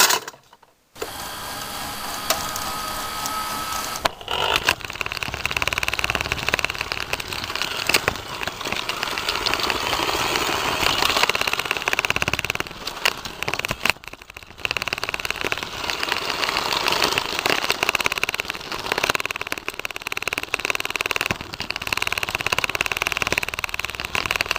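Rokenbok toy monorail's small motor and plastic gears running along the track: a dense, fast mechanical rattle and whir. It breaks off briefly about a second in and again around halfway.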